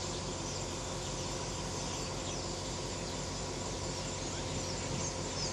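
Steady hum of a diesel passenger train idling while it stands at a station, with birds chirping over it in short, high calls that fall in pitch, more of them near the end.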